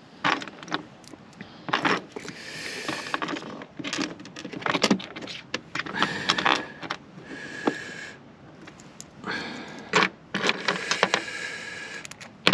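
Small metal hardware (stainless steel bolts, nuts and washers) clinking and rattling as it is handled and fitted, with irregular sharp clicks and a few scraping stretches about a second long.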